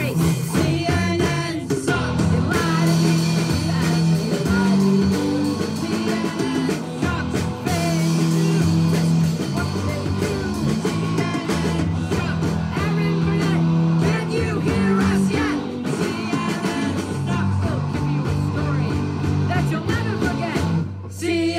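A band playing a rock-and-roll song with guitar and bass, with voices singing over it; the music drops off near the end.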